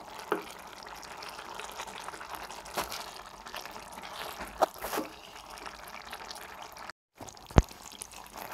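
A spoon stirring a pan of simmering sprouted moth bean curry: wet sloshing of the beans and gravy, with a few sharp clicks of the spoon against the pan. The sound drops out briefly near the end.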